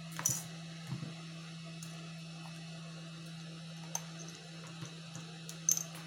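A few light clicks and taps of the glass-fronted iPad 2 and plastic prying picks being handled on a silicone repair mat, the loudest just after the start and near the end, over a steady low hum.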